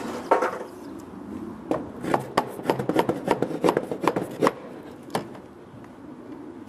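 Claw hammer tapping on wooden framing: one knock, then a quick run of about a dozen light taps, roughly four a second, and a single last tap.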